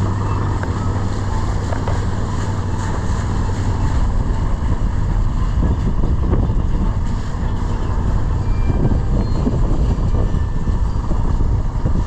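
Boat engine running steadily under way, a constant low hum, with wind noise rumbling on the microphone.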